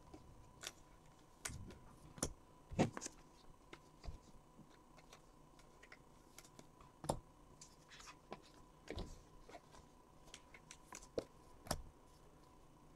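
Scattered faint clicks and taps, a dozen or so at irregular intervals, over quiet room tone with a faint steady high hum.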